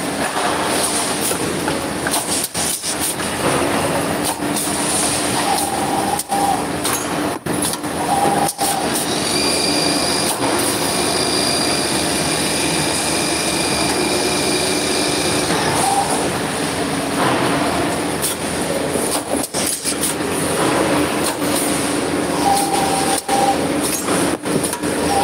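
Copper tube cutting and end-forming machine running, a dense metallic clatter with a steady high whine. Short squeals come every few seconds, and a higher whine joins for several seconds in the middle.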